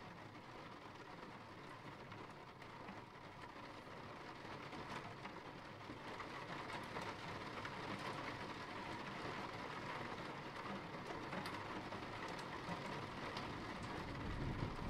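Steady rain falling, an even hiss of drops that grows louder during the first half, with a low rumble coming in near the end.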